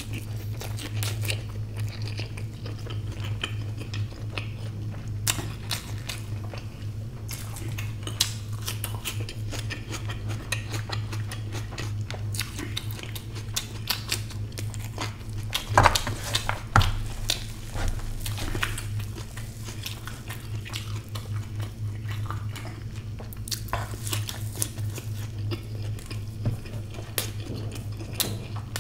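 Close-miked eating: wet chewing and lip smacks as omelette and egg are eaten by hand, with a few louder crunches about halfway through, after a bite into a raw green chilli. A steady low hum runs underneath.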